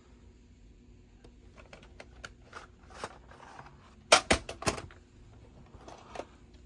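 Hard plastic clicks and knocks from a VHS cassette and its case being handled: scattered light clicks, then a loud clatter of three or four knocks about four seconds in, and two more near the end.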